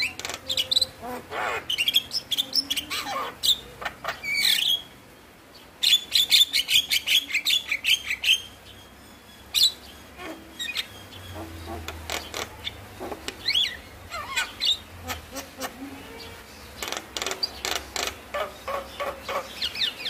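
Javan myna singing: a varied run of harsh, rapid clicking chatter mixed with whistled notes, with short pauses about five and nine seconds in.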